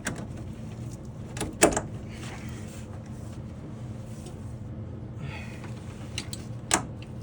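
Sharp clicks and knocks of a retaining clip being worked and snapped into place on a water heater's plastic fitting, with brief scraping between them; the loudest snaps come about a second and a half in and near the end. A steady low hum runs underneath.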